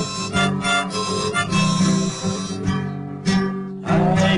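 Background music: an acoustic guitar strumming under a harmonica line, in an instrumental passage of a song.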